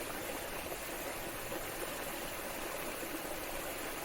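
Steady rushing of a small waterfall and stream.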